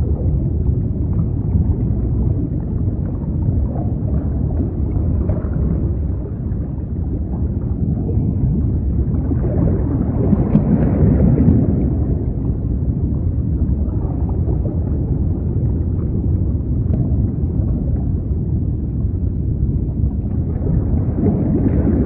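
Underwater ambience: a muffled, low wash and rumble of water that swells slowly, peaking about ten to twelve seconds in, with a few faint clicks.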